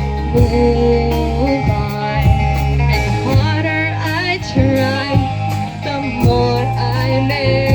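Live band playing: a steady drum beat with bass and electric guitar, and a wavering lead line above them.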